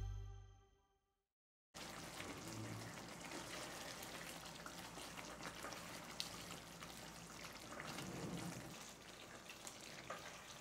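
About two seconds in, a faint steady sizzling crackle with many small pops starts: creamy chicken curry simmering in a pan while a wooden spatula stirs it.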